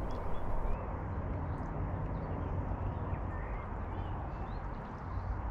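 Steady outdoor background noise with a few faint, short bird chirps.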